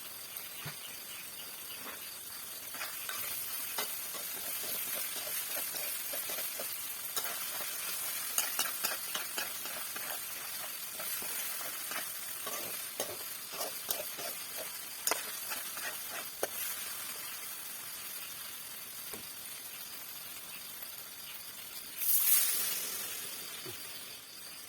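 Food sizzling in a hot pan while being stirred, with a utensil scraping and clicking against the pan. Near the end a sudden louder hiss flares up and fades.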